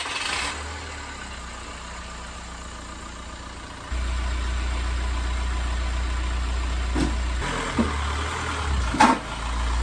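2004 VW Beetle TDI's 1.9 L BEW four-cylinder turbodiesel running at low speed as the car creeps forward onto drive-up ramps, getting louder about four seconds in. A few short knocks come near the end.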